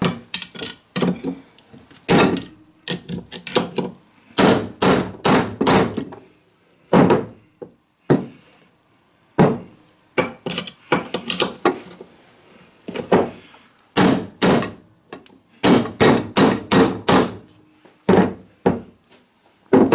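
Hammer blows on a lawn tractor transaxle, struck at a pinion that is jammed in the gearbox and will not come out. The strikes come in irregular runs of a few at a time with short pauses between.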